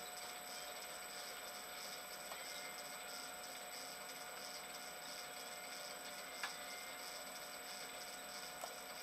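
Faint steady hum and hiss with a few thin constant tones: the muffled noise of a camera recording from inside its closed housing. One light click about six and a half seconds in.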